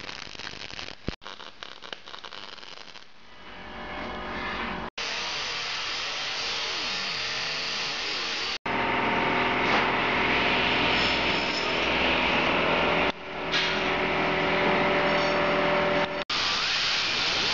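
Angle grinder with a cutting disc cutting through steel frame tubes: a steady grinding whine in several stretches, each ending in a sudden edit cut. It is quieter for the first few seconds and louder from about five seconds in.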